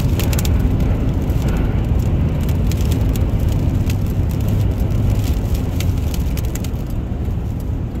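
Steady low rumble of wind buffeting and road noise heard inside a Toyota Tundra pickup's cab while it drives through a blizzard in gale-force winds. Faint scattered ticks sound throughout.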